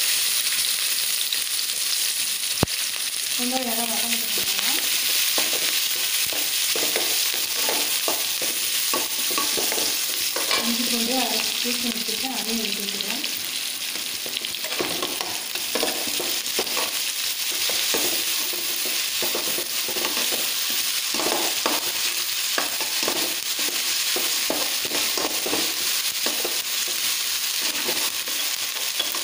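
Chopped shallots and curry leaves sizzling in hot oil in an aluminium kadai, under a steady hiss. A slotted metal ladle stirs them, scraping and tapping against the pan, with the taps coming more often in the second half.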